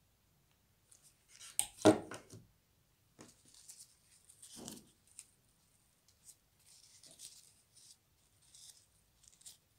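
Hands handling a grosgrain ribbon bow and a hair clip: scattered rustles and light taps, with one louder knock about two seconds in.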